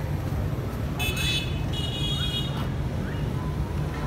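Street noise with a steady low rumble. A high-pitched vehicle horn honks twice: a short toot about a second in, then a longer one just after.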